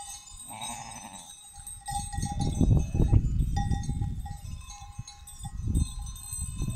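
Bells on grazing sheep and goats ringing on and off, with a single bleat about half a second in. From about two seconds in, a loud low rumble on the microphone is the loudest sound.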